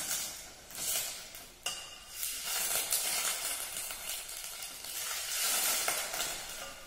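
Chicken stock sizzling and hissing in a hot steel saucepan of oil, chicken and whole spices as it is stirred with a wooden spoon, the hiss swelling and fading in waves. One sharp tap a little under two seconds in.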